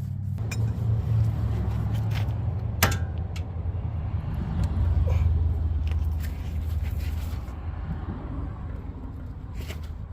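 Metal hand tools clinking against a wheel hub as a socket and adapter are fitted to a seized lug nut, with a sharp ringing clank about three seconds in. A steady low engine rumble runs underneath.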